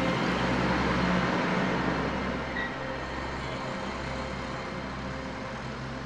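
Minivan driving past, its engine and tyre noise fading as it moves away.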